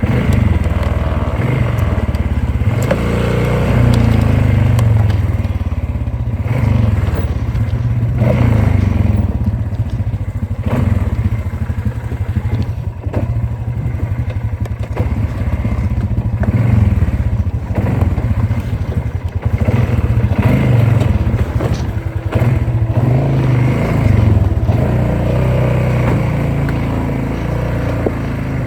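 Polaris off-road vehicle's engine running on a trail, its pitch rising and falling with the throttle several times, with scattered knocks and clattering from the rough ground.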